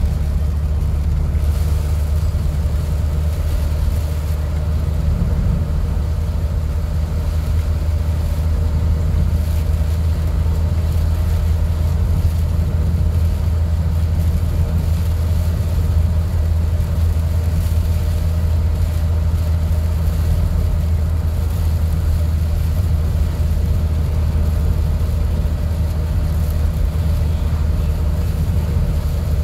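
Steady low rumble of a car cruising at a constant speed on a highway, heard from inside the cabin: engine and road noise with no change in pace.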